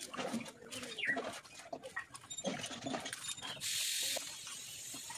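Pieces of raw papaya dropped by hand into an iron kadai, knocking against the pan, with birds calling in the background and a brief hiss about four seconds in.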